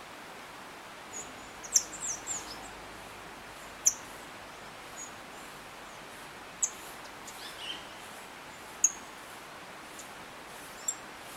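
Saffron finch calling: short, sharp, high-pitched chirps at uneven gaps, with a quick cluster of several about two seconds in. The calls sit over a steady background hiss.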